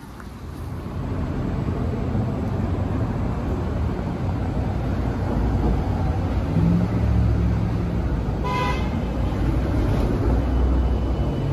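A heavy motor vehicle's engine running close by, growing louder over the first second or two, with one short high horn beep about eight and a half seconds in. Near the end the engine note climbs as it speeds up.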